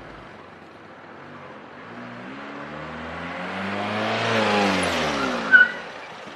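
A car approaching fast, its engine note rising and then falling as it nears and slows, with a brief sharp squeal near the end as it brakes to a sudden stop close to a pedestrian.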